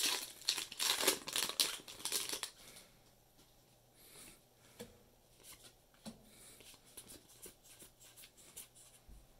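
Foil booster-pack wrapper crinkling and tearing as it is pulled open, for about the first two and a half seconds. Then the trading cards inside slide and flick softly against each other as they are handled and sorted.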